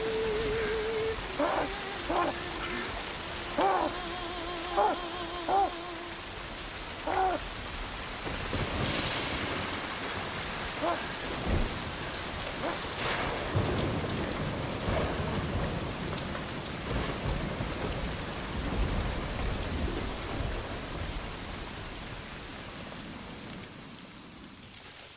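Heavy rain pouring, with low rolls of thunder building in the middle. A wavering tone in short notes sounds over the rain during the first seven seconds.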